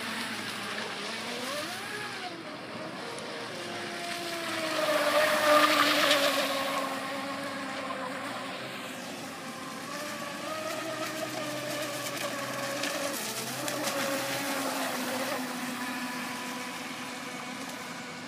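Homemade plywood RC hydroplane boat running on the water, its 3180 KV brushless motor and hard-shaft drive giving a high whine whose pitch rises and falls. It is loudest about six seconds in and fades near the end.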